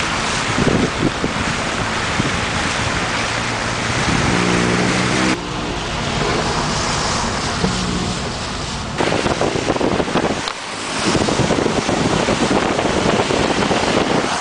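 Car tyres hissing and splashing through standing floodwater on the road, with wind noise on the microphone; a short low pitched drone comes in about four seconds in.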